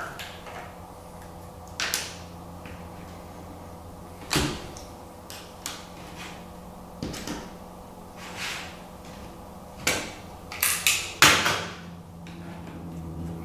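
Thin acrylic plates clicking against each other and tapping down on a cutting mat as they are handled and sorted: scattered light clacks, with a quick run of louder ones near the end, over a faint steady hum.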